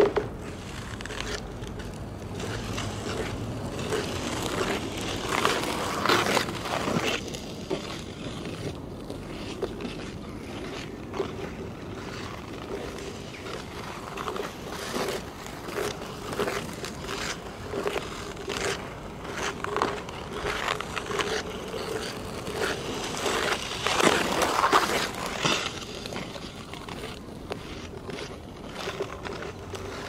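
Ice skate blades scraping and gliding on hard natural black ice, heard with the microphone close to the ice: a run of strides. The sound swells twice as skaters pass close by, about a fifth of the way in and again past three-quarters of the way through.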